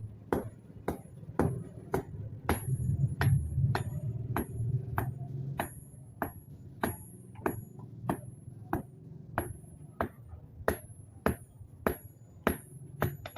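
A blacksmith's hammer strikes iron on an anvil in a steady rhythm of about two blows a second, each with a bright metallic ring. A low hum runs underneath and swells for a few seconds mid-way.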